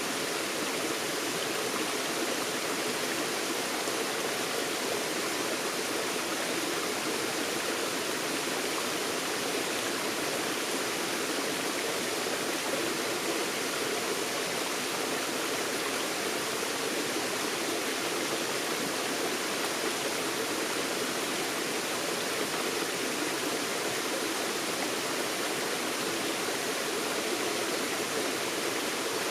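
Forest stream running over rocks: a steady, even rush of water that does not change.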